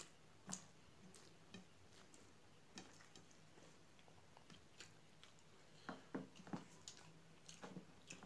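Faint eating sounds: chewing a mouthful of rice and pea curry, with scattered soft clicks and smacks as fingers mix rice on a steel plate, a few louder ones bunched about six seconds in.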